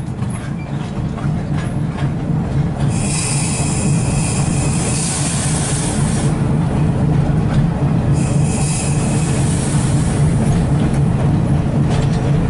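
GE 70-tonner diesel locomotive heard from inside its cab while rolling along the track: the engine drones steadily and grows louder over the first several seconds. High squeal from the wheels on the rails rises about three seconds in, lasts a few seconds, and returns briefly around eight seconds.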